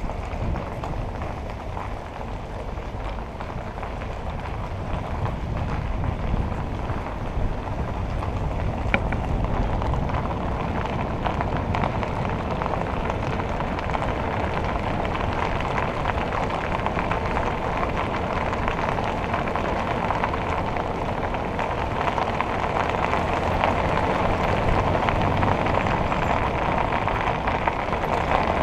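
Car driving along a road, heard from a camera mounted outside the car: steady tyre noise on the pavement mixed with wind rushing over the microphone, growing slowly louder as the car gathers speed.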